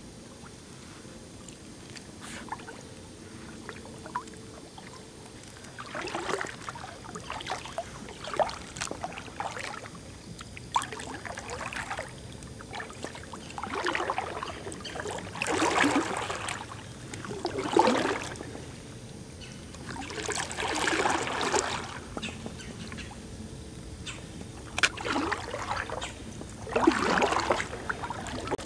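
Kayak paddle strokes in calm water: a splashy swish as the blade dips and pulls, recurring every couple of seconds after a quieter start, with drips and a few light clicks in between.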